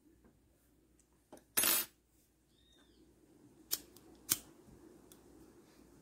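Scissors cutting crochet yarn at a colour change: a short rustle of handling, then two sharp snips about half a second apart near the middle.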